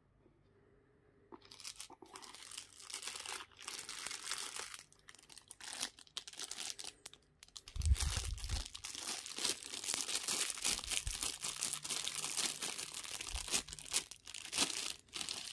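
Clear plastic bag around a knife crinkling and rustling as hands handle and unwrap it, starting about a second in. A low thump about eight seconds in.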